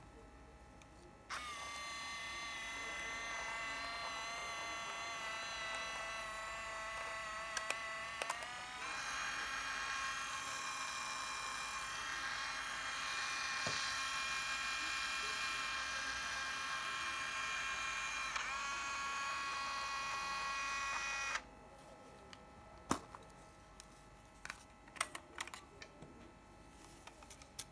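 The Olympus Trip AF 51's built-in film-transport motor running in rewind: a steady high-pitched electric whine for about twenty seconds that steps in pitch twice, then stops abruptly. A few sharp clicks follow near the end as the camera back is unlatched and opened.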